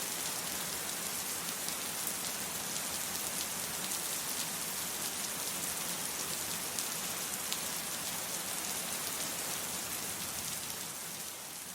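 Steady rainfall: an even hiss with scattered sharp drop ticks, starting to fade near the end.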